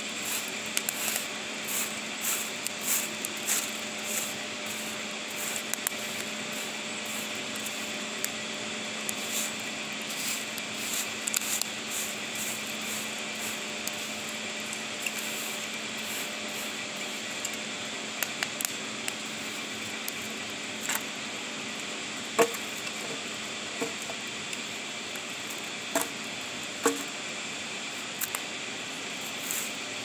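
Wood fire crackling and popping in a steel fire-pit bowl, with a run of small crackles and a few louder single pops in the second half, over a steady rushing noise of running water.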